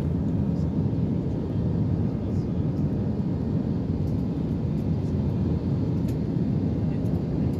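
Steady low rumble of an AirAsia Airbus A320's jet engines and rushing air, heard inside the passenger cabin in flight, with a few faint ticks.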